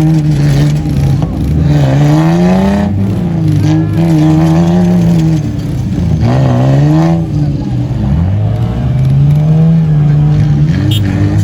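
A four-wheel-drive SUV's engine revving hard, its pitch climbing and dropping several times as the throttle is worked in desert driving.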